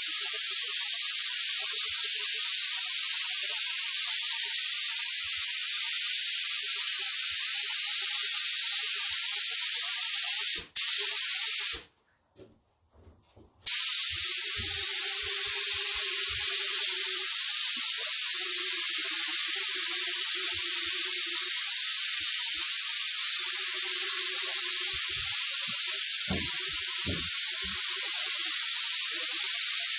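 Paint being sprayed: a steady hiss of spray that stops for a moment about eleven seconds in, then again for about two seconds before carrying on.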